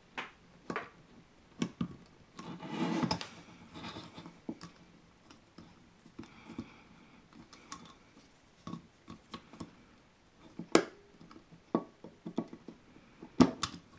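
Scattered small clicks and knocks of metal parts being handled as the retaining clip that holds a Villiers S10 carburettor onto its governor body is fitted. A few louder knocks come near the end.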